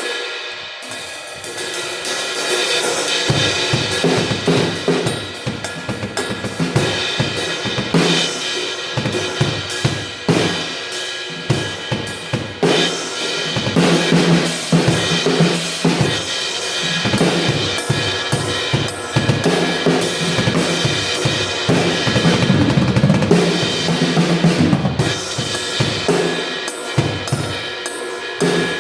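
Drum kit played as a steady groove, with crashes on a Mosico Modern Series 19-inch crash cymbal washing over snare, hi-hat and kick drum. The first few seconds are lighter cymbal and snare playing before the kick drum comes in about three seconds in.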